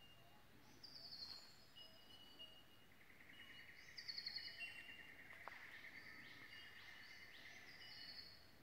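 Faint chorus of several forest birds calling at once. A long rapid trill starts about three seconds in and runs for some five seconds, over shorter high trills, steady whistled notes and a few quick rising whistles.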